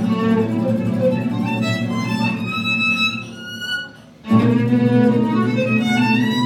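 Live acoustic string trio playing: violin carrying the melody over acoustic guitar and upright double bass. The music thins out past the middle, stops briefly, then all three come back in together.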